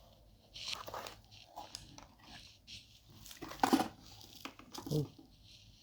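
Packaging being handled during an unboxing: crinkling and crunching of the box and its wrapping, in a few irregular bursts.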